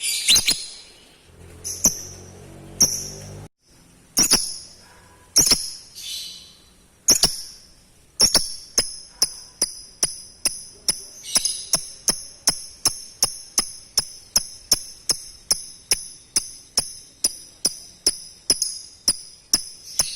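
Lovebird calls: a few shrill, irregular calls, then from about eight seconds in a long, evenly paced run of sharp chirps at about three a second, the lovebird's long 'ngekek' chatter.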